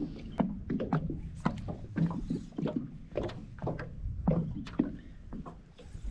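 Water lapping against the boat's hull in short, irregular slaps and knocks, about one or two a second.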